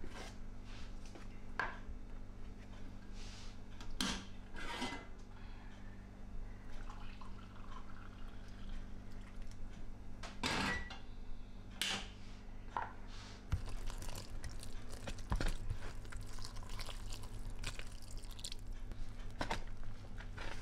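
A fork scraping and clinking in a plastic bowl as flour dough is stirred, with scattered knocks of kitchenware, over a low steady hum.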